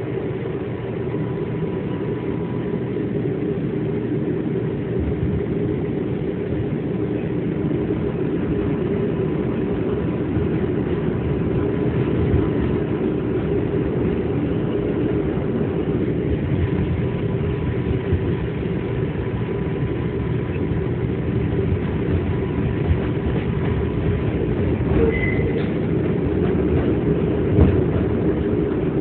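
Inside a New York City subway 2 train car pulling out of a station and running along the elevated line: a steady low rumble of wheels on rails and motor hum that grows a little louder as the train picks up speed.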